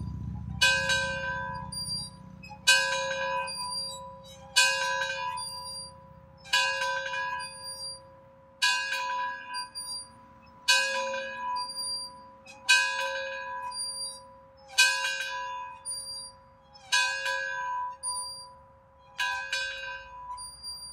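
A single church bell in a rooftop cupola tolling, struck about once every two seconds. Each stroke rings on and dies away before the next.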